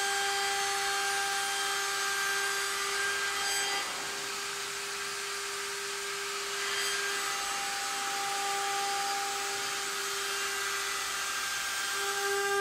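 Router spindle on a gantry jig running with a steady high whine while its bit cuts along the edge of a walnut tabletop, with a dense cutting hiss. From about four to seven seconds in, the cutting noise and the whine's overtones ease off, then come back.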